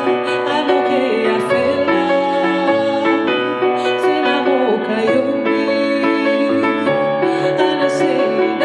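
Music: sustained keyboard chords with a woman singing over them. The chord changes about seven seconds in.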